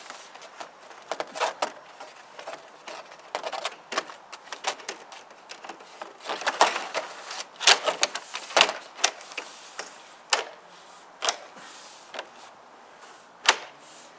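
Vinyl siding panel clattering and clicking against the wall as it is pushed up and snapped into the crimped undersill trim: a run of sharp, irregular clicks and knocks, loudest around the middle and once more near the end.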